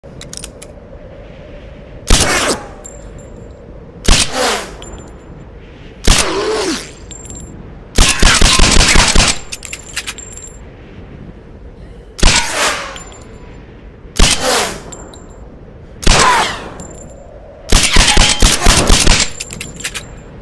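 Suppressed semi-automatic pistol firing. Three single shots come about two seconds apart, then a rapid string of shots, and the whole pattern repeats once. Each shot is a sharp crack with a short ringing tail.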